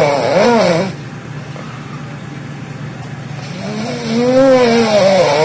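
A sleeping person snoring loudly: two long snores with a wavering pitch, the first ending about a second in and the next starting about three and a half seconds in.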